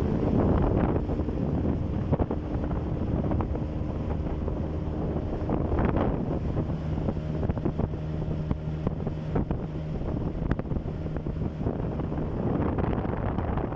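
Small boat's outboard motor running steadily at speed under way, with wind buffeting the microphone.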